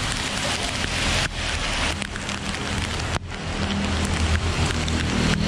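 Heavy rain pouring onto a street and pavement, a dense steady hiss. A low hum joins in and grows louder in the second half.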